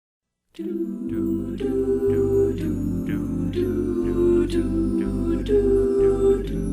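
An a cappella vocal group sings held chords over a low bass part, with a new syllable about every half second. It starts about half a second in.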